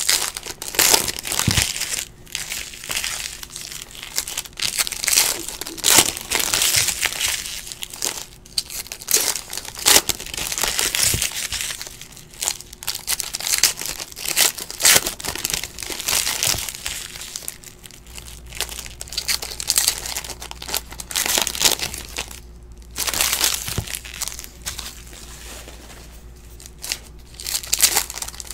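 Foil trading-card pack wrappers crinkling and tearing as packs are ripped open by hand, in irregular bursts of crackle.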